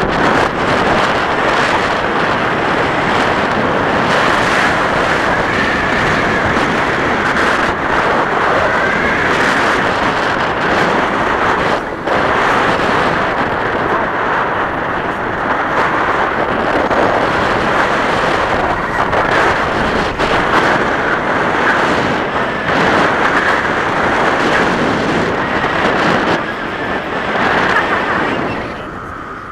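Loud, steady rush of wind buffeting an action camera's microphone on a tandem paraglider in flight, easing a little near the end.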